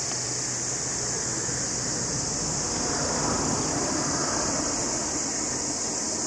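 Steady outdoor ambience: a continuous high, even drone over a broad low rushing noise that swells slightly about three seconds in.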